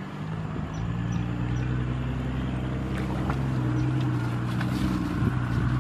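An engine running steadily nearby, its pitch stepping up a little about a second in and then holding, with a few faint clicks over it.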